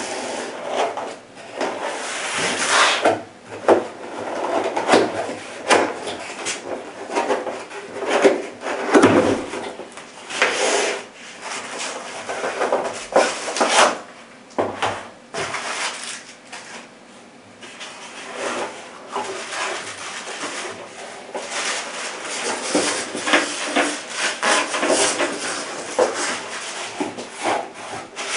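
Cardboard packaging being handled: a long box's flaps and inserts scraping and rubbing, with irregular rustles and light knocks.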